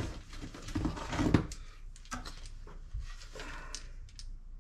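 Rustling and clicking as a screw-in trail camera tree mount is handled and taken out of its packaging, with a few light knocks.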